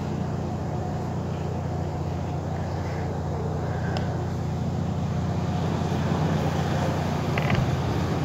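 Steady low mechanical hum under a light even hiss, with a faint tick or two.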